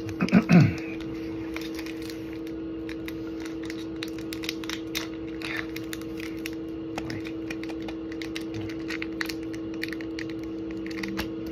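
Light clicks and crinkles of foil Pokémon booster pack wrappers being handled and sorted, over a steady low hum, with a brief louder sound about half a second in.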